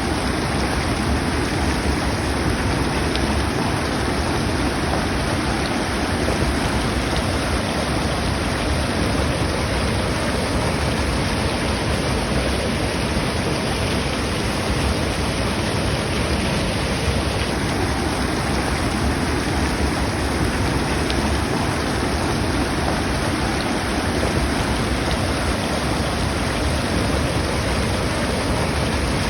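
Steady rush of water pouring into a natural pool that churns like a jacuzzi.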